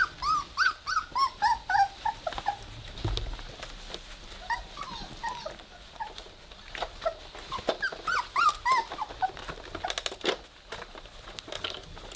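Three-week-old Weimaraner puppies whimpering and squeaking in runs of short, high, rising-and-falling calls, one run at the start and a longer one in the middle. A few sharp clicks come near the end.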